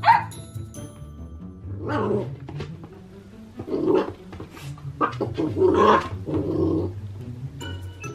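Ten-week-old F1 mini goldendoodle puppy growling and barking at a toy, in several separate calls: about 2 s in, around 4 s, and a sharper bark at about 5 s running into longer growls. Background music plays throughout.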